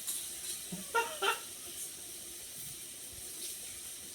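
Hot pot broth simmering with a steady hiss, and two short clinks of dishes or utensils about a second in.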